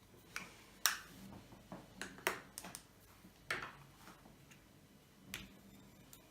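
White fluffy slime being kneaded by hand, air pockets popping with sharp, irregular clicks, about eight over a few seconds.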